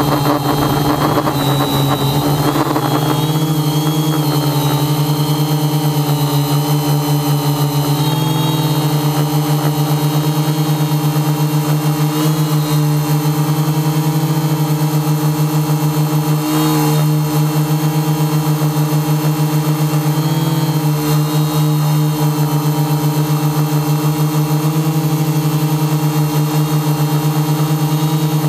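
Multirotor drone's electric motors and propellers, heard from the onboard camera: a steady hum made of several tones, whose pitch dips and recovers briefly a few times as the throttle changes.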